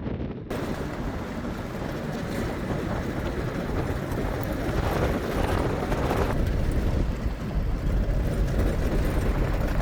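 Strong wind blowing across the microphone: a loud, steady rush with a heavy low rumble. It starts at a cut about half a second in.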